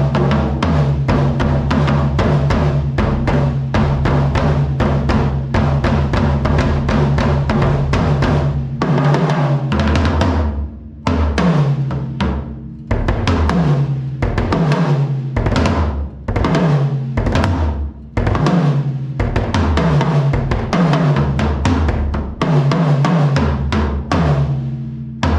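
DW LowPro travel drum kit, with short shells and no resonant heads, played on toms and kick through the camera's built-in mic. Dense fast playing for about ten seconds, then separate tom and kick hits, the toms ringing with a pitch that sags after each strike.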